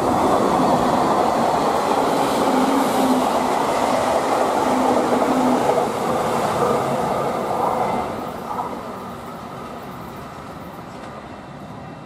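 JR Kyushu 813 series electric train running through the station at speed without stopping: a loud, steady rush of wheels on rails that fades about eight seconds in as the last car passes.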